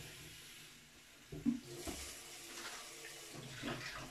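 Kitchen tap running into a sink while a plastic bottle is rinsed under it, with a few light knocks about one and a half, two and nearly four seconds in.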